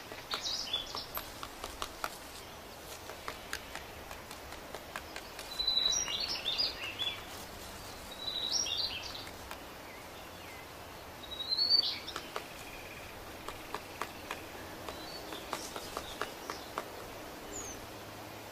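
Grey-headed woodpecker pecking at a tree trunk while excavating its nest hole, making irregular light taps. Short bursts of high chirping bird calls come several times.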